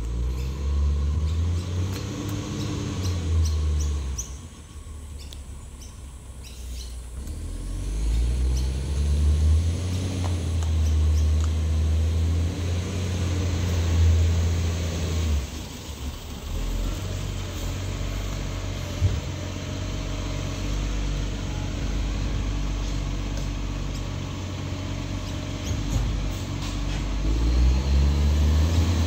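Side-loader garbage truck's diesel engine running and revving up and back down several times, with a quieter lull about four seconds in.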